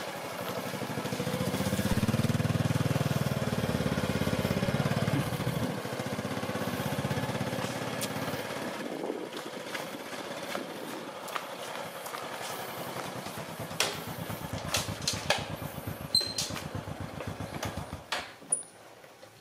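Honda Dream underbone motorbike's single-cylinder four-stroke engine running as it is ridden slowly, loudest for a few seconds near the start, then quieter. Scattered sharp clicks sound over it in the second half, and the engine sound falls away near the end.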